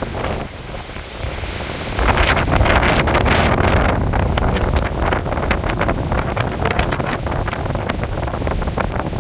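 Storm wind gusting and buffeting the microphone, a rough, irregular rushing that gets much stronger about two seconds in.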